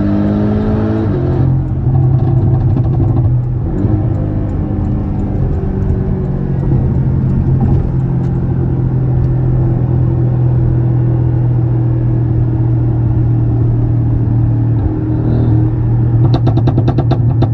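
Remapped Porsche 718 Cayman's turbocharged flat-four with a stainless exhaust, revving up and then dropping as the throttle closes about a second in. It then runs at a fairly steady engine speed, with a rapid run of crackles near the end.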